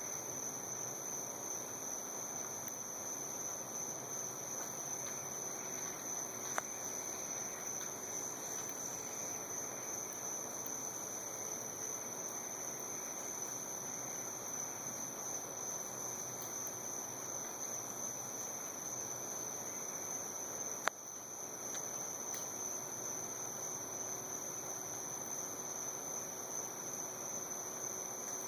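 Steady night chorus of crickets and other insects, with one high, even trill held at a constant pitch throughout. Two brief clicks cut through it, one about a quarter of the way in and a sharper one about three-quarters through.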